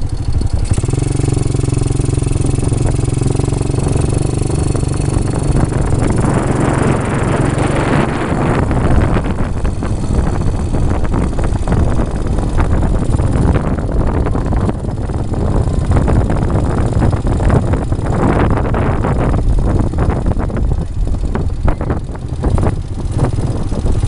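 Quad bike (ATV) engine running: a steady idle for the first several seconds, then a rougher, noisier stretch from about six seconds in.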